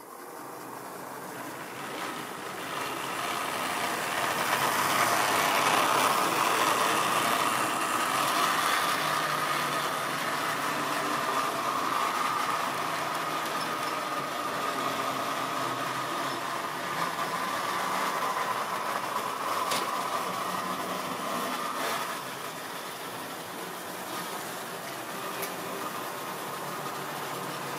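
Tri-ang model train running past on the layout track: a steady electric-motor whine with wheel rumble and rattle. It grows louder over the first few seconds and eases off about three-quarters of the way through, with a few sharp clicks along the way.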